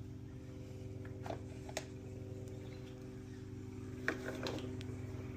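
A few light clicks and taps of hand tools on metal as screws are undone on the Honda CT110 engine's side cover, over a steady low hum.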